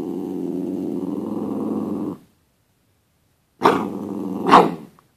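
Small long-haired dog growling while its chest is scratched, a drawn-out grumbling growl for about two seconds. After a short pause comes a second, shorter growl with two louder peaks, at its start and near its end: the dog is asking to be petted.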